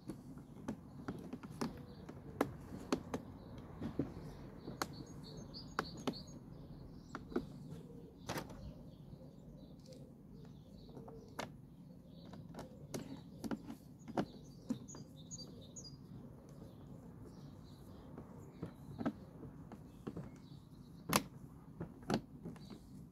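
Irregular sharp clicks and taps of a screwdriver working screws into the plastic motor mount of a Flymo hover mower. Birds chirp briefly twice in the background.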